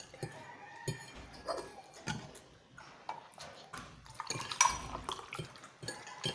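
Sounds of eating at a table: scattered clinks of forks on plates and glasses, with water poured from a plastic bottle into a drinking glass in the second half.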